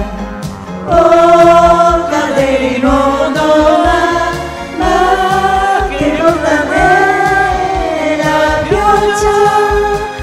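A group of amateur karaoke singers singing together into microphones over a karaoke backing track with a steady beat. There are long held notes that waver in pitch.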